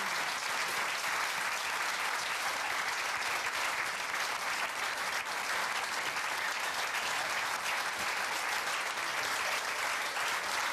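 Studio audience applauding, a steady, even clapping from many hands that holds at the same level throughout.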